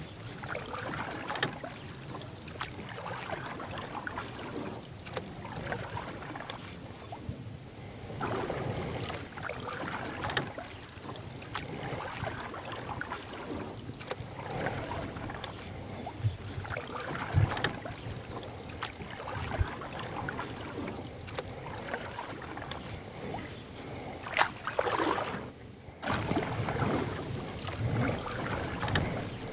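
Kayak paddling: uneven swishes and splashes of the paddle blades in the river water, with a few sharp knocks.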